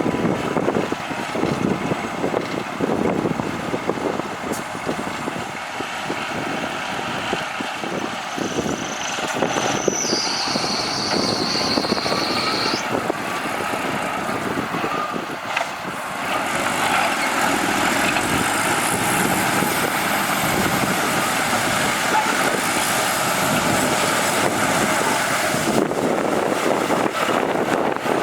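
Heavy diesel machinery running continuously: a crawler bulldozer and a dump truck at work. About a third of the way in, a steady high-pitched tone sounds for about three seconds.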